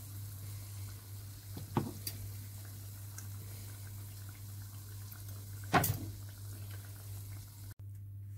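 Orange huesillo dough fritters sizzling in hot sunflower oil in a saucepan, a steady hiss over a low hum. Metal spoons knock against the pan twice, about two seconds in and just before six seconds, as the fried fritters are lifted out.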